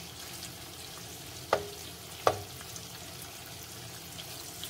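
Raw chopped bacon sizzling as it starts to fry in a nonstick frying pan, stirred with metal tongs. There are two sharp clicks of the tongs against the pan near the middle.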